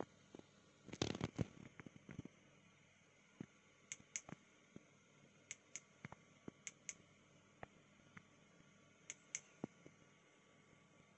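Xtar R30 1200 flashlight's switch clicking in quick press-and-release pairs, four times, as it steps between brightness modes. Handling noise and a few louder clicks come about a second in.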